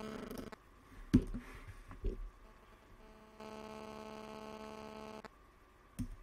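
A few sharp clicks of computer keyboard typing, then a steady hum, one held tone with overtones, for about two seconds in the middle, and a short knock near the end.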